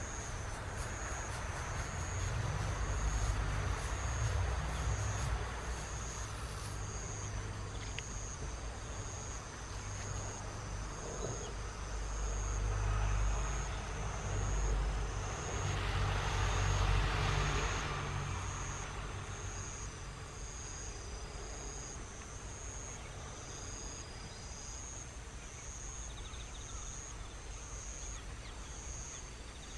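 An insect chirping in a steady high-pitched pulse about once a second, over a low rumble of traffic that swells twice, most strongly about 12 to 18 seconds in.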